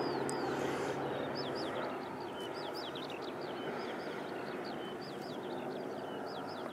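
Drone of a twin-engine propeller aircraft flying away, fading over the first couple of seconds. Small birds then chirp rapidly and repeatedly, close by.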